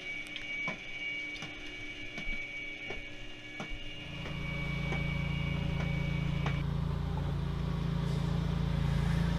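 Chairlift ride: scattered clicks and a steady high whine from the lift machinery. About four seconds in, a louder steady low hum and rumble takes over as the chair climbs away from the station.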